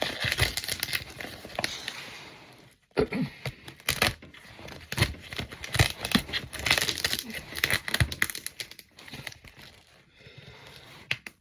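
Packaging being unpacked by hand: irregular crinkling, rustling and tearing, with scattered sharp knocks and taps.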